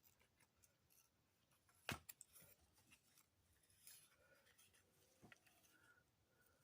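Faint handling noises of unboxed items: a sharp click about two seconds in, then soft rustling and a small tick.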